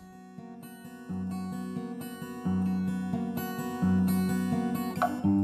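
Acoustic guitar music, starting softly and growing louder, with deeper notes coming in about a second in.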